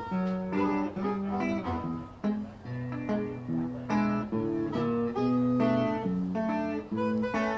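Live blues band music: a harmonica played cupped against a microphone, wailing held notes over electric guitar.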